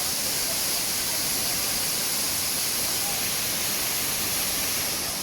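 Steady rushing roar of a waterfall close by, even and unbroken.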